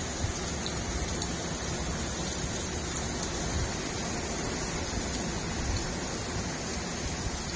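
Heavy rain pouring steadily onto a grass lawn and paving stones: a dense, even hiss with no let-up.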